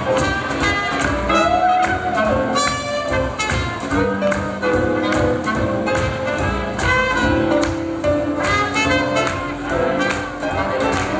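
Live swing jazz band playing a lively swing tune with a steady beat.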